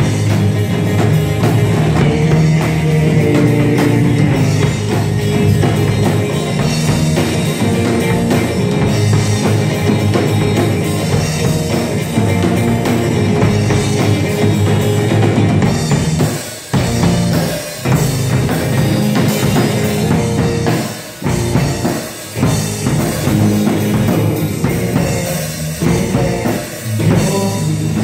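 Live rock band playing: two electric guitars and a Yamaha drum kit. The full band drops out briefly several times in the second half before coming back in.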